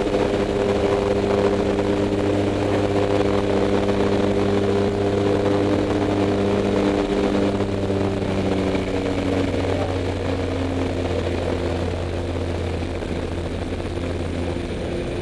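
Jump plane's propeller engines droning loudly inside the cabin, over a steady rush of air noise. About eight to nine seconds in, the drone settles to a slightly lower pitch and eases a little, as power is pulled back for the jump run.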